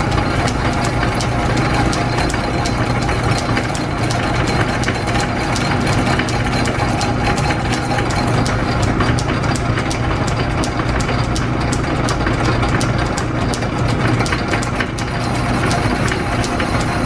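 Small electric-driven lathe running in back gear at its lowest speed while a carbide tool turns a cast iron steam-engine piston built up with brass: a steady hum with a fast, even ticking over it.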